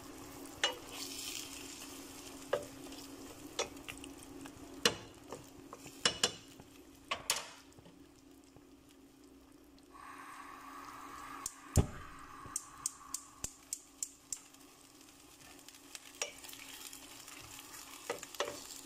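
Chicken and potato stew sizzling in a pan, with irregular knocks and clicks of a wooden spatula stirring against the pan, including a quick run of them in the middle.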